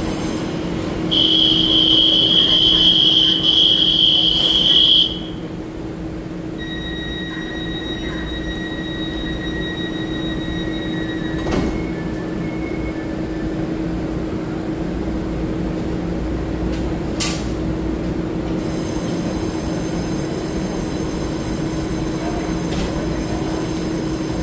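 Taiwan Railway EMU3000 express train standing at the platform with its equipment humming steadily, while a loud, steady, high door-closing warning tone sounds for about four seconds starting about a second in. A quieter two-pitch tone follows for about five seconds as the sliding doors shut, and there are two sharp clacks, one midway and one a few seconds later.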